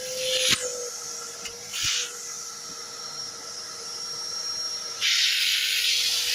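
Karcher WD 3 wet-and-dry vacuum cleaner running, a steady motor hum under the hiss of air through the hose and nozzle. The hiss surges briefly twice, then grows louder and stays up from about five seconds in.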